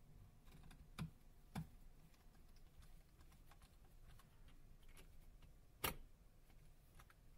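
Near silence broken by a few faint, sharp clicks from a precision screwdriver fastening tiny Torx Plus screws into a phone's metal connector support frame, tightened to 15 Ncm. One click comes about a second in, another half a second later, and the loudest near the end.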